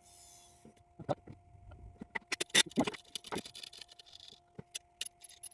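Irregular sharp clicks and light knocks from handling the opened hard disk drive's metal parts, over a faint steady hum.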